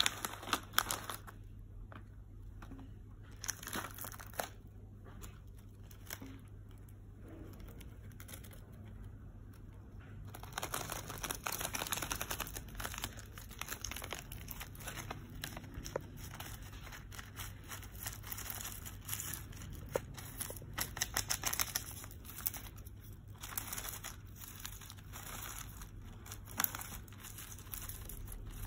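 Plastic sunflower-seed bag crinkling and rustling as a hamster climbs and burrows into it. The crackling comes in irregular spurts and is busiest about ten to thirteen seconds in and again around twenty seconds in.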